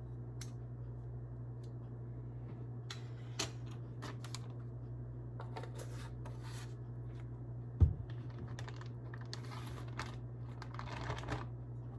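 Scattered small clicks, taps and rustles of kitchen items being handled, with one dull thump about eight seconds in, over a steady low hum.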